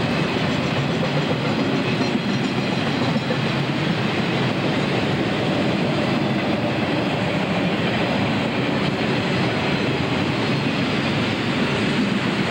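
Freight train of autorack cars rolling past close by: steel wheels running on the rails, a steady, unbroken rolling noise.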